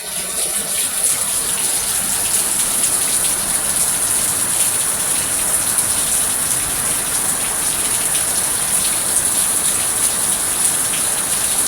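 Rain coming down steadily: a dense, even hiss with the ticks of individual drops striking.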